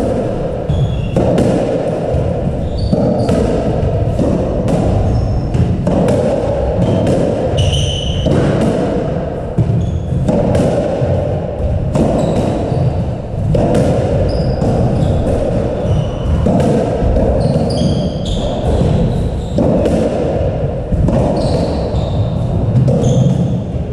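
Squash rally: the ball smacking off rackets and the court walls about once a second, at an uneven beat, with short high squeaks from court shoes on the wooden floor, all echoing in the enclosed court.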